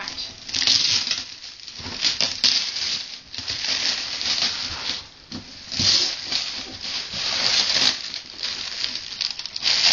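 Glittery, shiny gift-wrapping paper being torn and crumpled by hand: crinkling and rustling that comes and goes in uneven spells, with short pauses.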